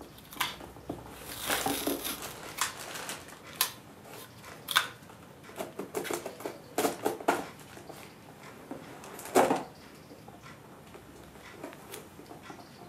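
Scissors snipping through thin cardboard and paper, with packaging crinkling and rustling between the cuts: a run of irregular sharp snips and crackles, the loudest about nine seconds in.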